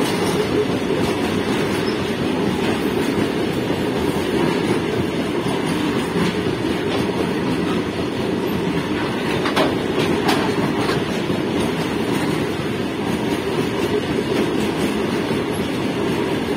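Loaded covered freight wagons of a long goods train rolling past close by at speed: a steady, even rumble of steel wheels on the rails, with two brief sharper clacks a little under halfway through.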